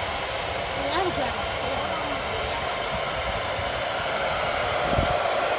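Handheld hair dryer running steadily, blowing hot air onto wax crayons to melt them.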